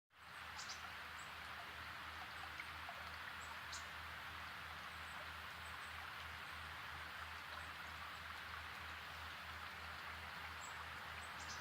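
Outdoor nature ambience: a steady rushing noise like running water or wind through foliage, with a low rumble underneath and a few faint, short, high bird chirps, two of them a little clearer about half a second and just under four seconds in.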